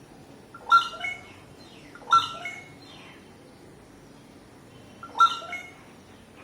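An animal calling three times, each call short and falling in pitch, the second about a second and a half after the first and the third some three seconds later.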